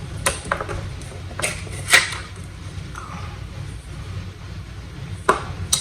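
Scattered sharp clicks and taps of plastic makeup cases being handled and set down, about six in all, the loudest about two seconds in, over a steady low room hum.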